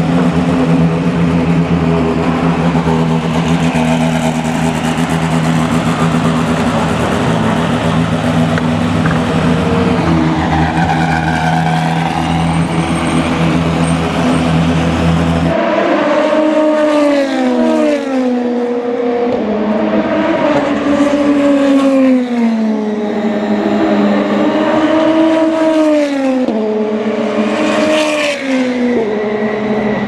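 DTM touring cars' 2.0-litre turbocharged four-cylinder engines. First a steady drone at one pitch as the cars run down the pit lane; then, about halfway, a car accelerating hard, its engine note climbing and dropping sharply with each upshift, several times in a row.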